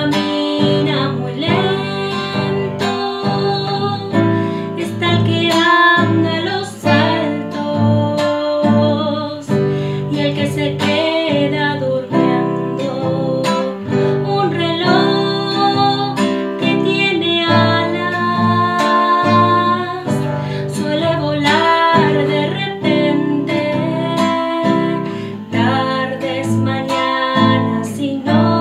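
A woman singing a song while strumming a nylon-string classical guitar.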